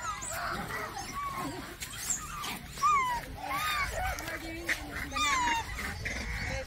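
Monkeys calling: a string of short, squeaky calls that each rise and fall, about half a dozen spread over several seconds.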